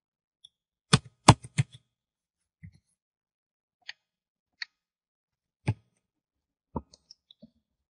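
Computer keyboard keys and mouse buttons clicking as a spreadsheet formula is typed and edited. A quick run of four clicks comes about a second in, then single clicks every second or so, with a few light ones near the end.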